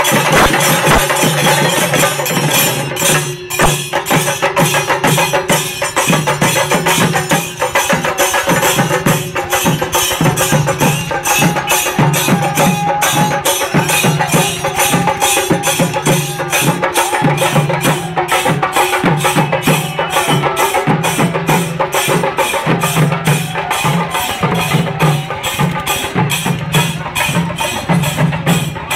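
Chenda drums beaten with sticks, joined by hand cymbals, in a fast, continuous rhythm of dense strokes.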